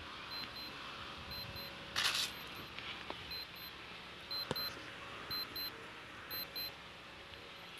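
Short, high electronic double beeps repeating about once a second, with a brief rush of noise about two seconds in.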